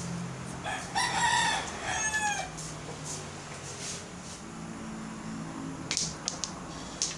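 A rooster crows once, a single arching call of about two seconds starting about a second in. Near the end come a few sharp clicks: a cue tip striking a ball and small pool balls knocking together on a mini pool table.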